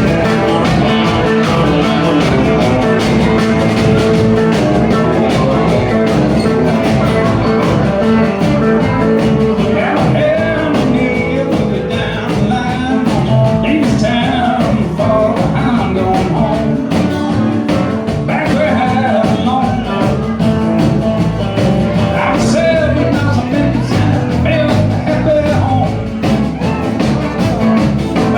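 Live country band playing a song with a steady beat, full band with guitars, bass and drums.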